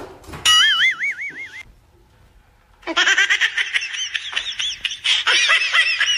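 Comedy sound effects: a short warbling tone that wobbles up and down for about a second, then, from about three seconds in, a rapid run of high-pitched squawking, cackling calls like a sped-up cartoon laugh.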